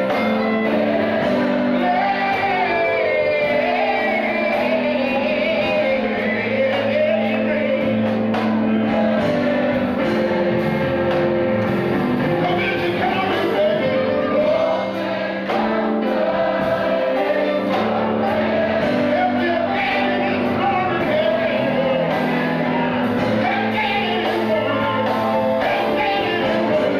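Gospel singing amplified through a microphone, with a voice carrying the melody over steady held chords.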